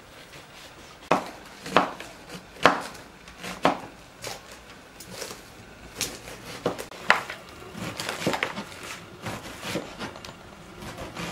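Serrated kitchen knife cutting onions on a wooden cutting board: sharp, irregular knocks of the blade striking the board, about one a second, starting about a second in.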